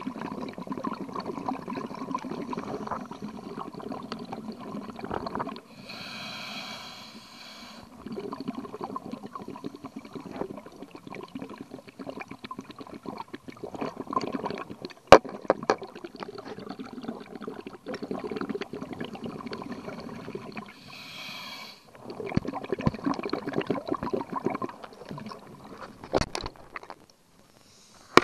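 Scuba diver breathing through a regulator underwater: long stretches of crackling exhaled bubbles, broken by a hiss of inhalation about six seconds in and again about 21 seconds in. A sharp click comes about 15 seconds in.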